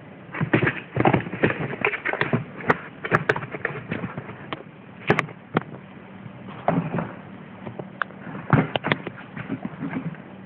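A tabby kitten pouncing and scrabbling on a printed cardboard box and paper: irregular thumps, scratches and rustles in quick flurries with short pauses, busiest in the first few seconds and again near the end.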